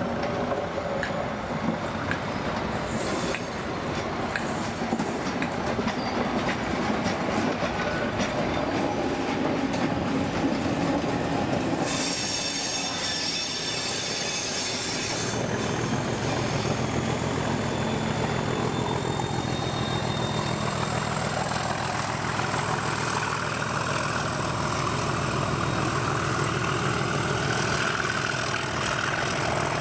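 Network Rail test train coaches passing, their wheels clattering over the rails with some squealing. From about halfway a Class 37 diesel locomotive's English Electric engine takes over with a steady low throb.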